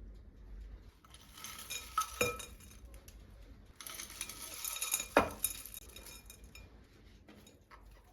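Kitchen utensils scraping and clinking against dishes, with two sharp ringing clinks about two and five seconds in.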